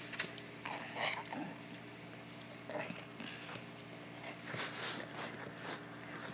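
Dog chewing and gnawing on a ball, in irregular bursts of mouthing and breathing noises, with a steady low hum underneath.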